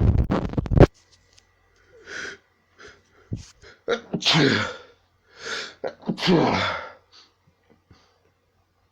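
A person sneezing repeatedly: a loud burst at the start, then quick in-breaths and two long, loud sneezes about four and six seconds in, each falling in pitch.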